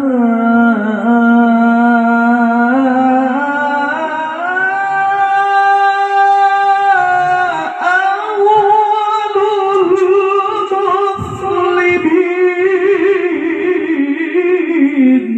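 A male qari's melodic Quran recitation (tilawah), amplified through a microphone and PA, holding long ornamented notes in a single voice. The pitch steps up about four seconds in, stays high with wavering turns, and falls back near the end.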